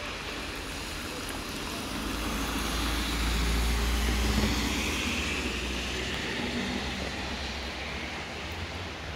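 Steady patter of rain, with a vehicle passing on the wet road: a low rumble that builds to its loudest about four seconds in and fades away.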